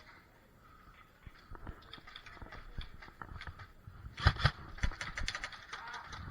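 An irregular run of clicks and knocks, busier in the second half, with two louder sharp knocks a little after four seconds and again near five seconds.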